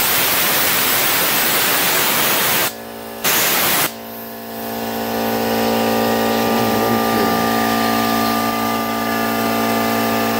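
A loud hiss of air blown across the work surface to clear sanding dust, cut off briefly and then a shorter second blast about three seconds in. Then a Dremel rotary tool with a sanding drum spins up and runs at a steady whine, grinding down cured epoxy to open a trapped air bubble.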